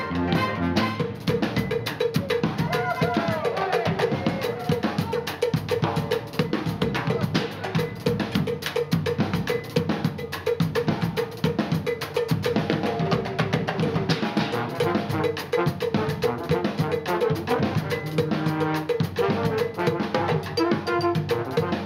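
Brass band playing live with a percussion-heavy passage: a fast, driving groove of marching snare drum and bass drum with cymbal, over horns, saxophones and electric guitars.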